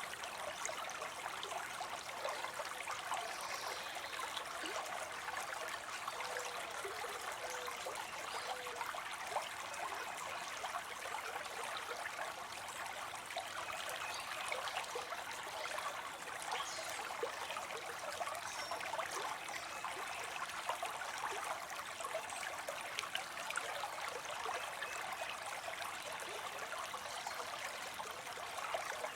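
Water spilling and trickling into a pond in a steady splashing stream, with many small splashes.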